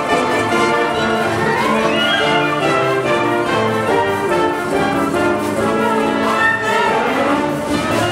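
Wind orchestra playing live, flutes, clarinets and brass holding chords, with a rising melodic line about two seconds in.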